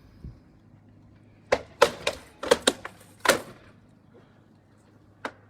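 Armoured combatants trading blows, rattan weapons cracking against shields and armour: a quick flurry of about seven sharp strikes in two seconds, then a single strike near the end.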